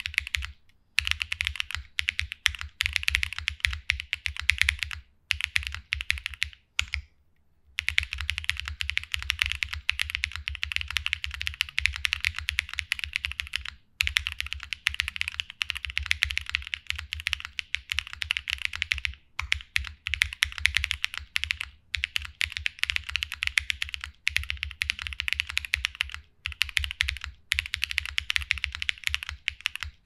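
Fast, continuous typing on an Owlab QK60 60% mechanical keyboard with stock, factory-lubed QTUO Strawberry Shortcake switches, a POM plate, PE and plate foam, and GMK keycaps: a dense clatter of keystrokes with a few brief pauses.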